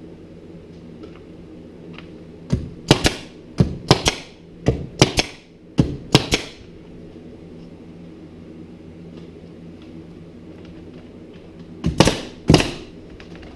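Nails being driven into wooden window framing: about nine sharp cracks in an irregular run over some four seconds, then two more near the end, over a steady low hum.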